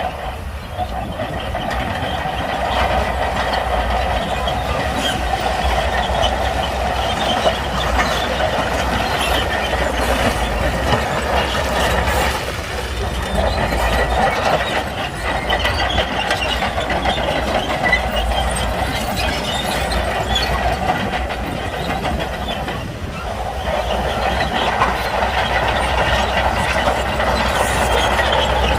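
Shantui crawler bulldozer at work: the diesel engine running steadily with a continuous clatter of the steel tracks. The noise eases off briefly twice, about midway and again near the end.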